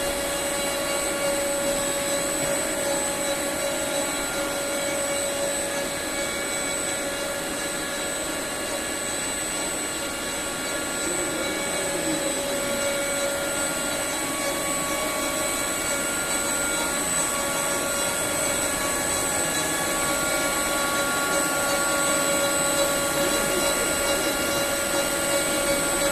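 Large Romi E-55C CNC lathe running, a steady machine whine with several held tones over a mechanical hum.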